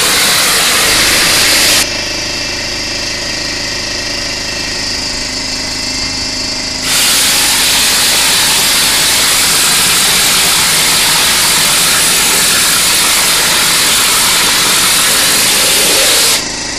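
Compressed air rushing through a stucco hopper gun as it sprays cement mortar onto a wall, a loud steady hiss. It stops about two seconds in and resumes about five seconds later, then cuts off just before the end. During the break the steady running of the air compressor can be heard.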